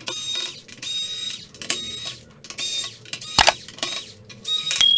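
Electric screwdriver backing out laptop bottom-case screws, whining in repeated short bursts, with one sharp click a little past the middle.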